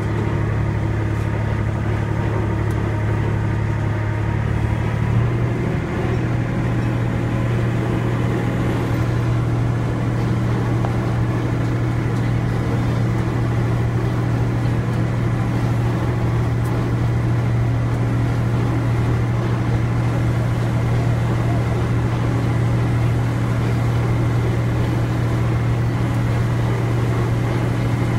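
Train engine running steadily, a low drone that steps up slightly in pitch about five seconds in.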